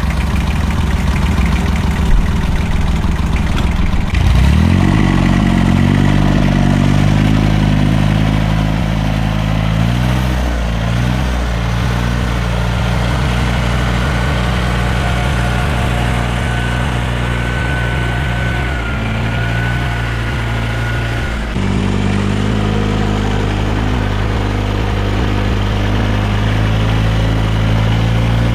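An engine running steadily. Its pitch steps up about four seconds in, dips briefly about three quarters of the way through, then picks up again.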